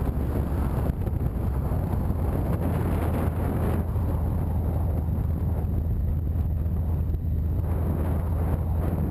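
Riding motorcycle: steady wind rushing over the microphone over a low, even rumble of engine and road noise.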